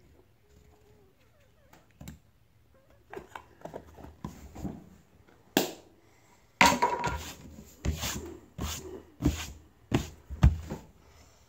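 A run of irregular knocks and taps on a wooden tabletop, starting about three seconds in, loudest near the middle and again near the end.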